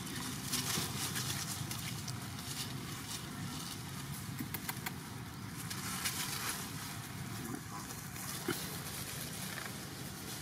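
Dry leaf litter crackling and rustling in short, irregular bursts as young macaques scuffle and play-wrestle on it, over a steady outdoor background hiss.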